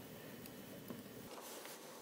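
Faint clicks and light rustling from fingers handling an Arduino Pro Mini board against a perfboard's pin header sockets, a few short ticks over a steady background hiss.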